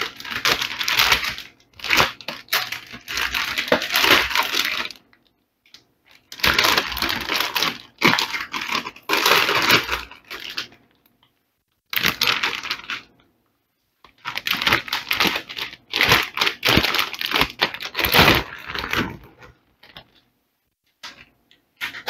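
Crinkling and rustling of a metallic anti-static bag as it is handled and pulled off a motherboard, in several bursts a few seconds long with short silent gaps between.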